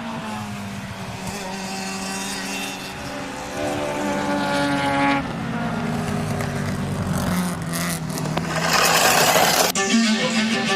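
Race-car engine sound revving, its pitch climbing and falling several times, with a rushing hiss near the end that cuts off suddenly.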